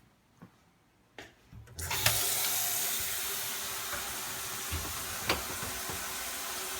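A water tap turned on about two seconds in and left running in a steady stream, with a few small clicks and knocks before it opens, while the fixture is checked for leaks.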